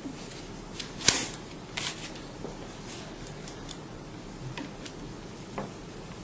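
Sharp clicks and short scrapes of a vacuum pump's fan cover being fitted back on and its screws handled, the loudest click about a second in.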